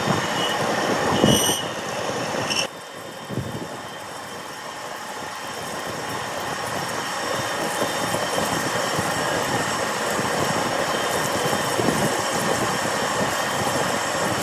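Manual metal lathe running, a steady mechanical machining noise with thin high whines. It drops suddenly about three seconds in, then builds back up gradually.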